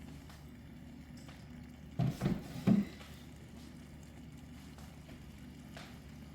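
Kitchen utensils knocking against a pan or dish: three quick clattering knocks about two seconds in, over a steady low hum.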